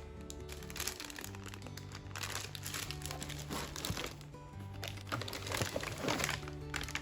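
Background music with held notes and a steady bass line. Bursts of crinkling handling noise sit over it, loudest about two seconds in and again near the end.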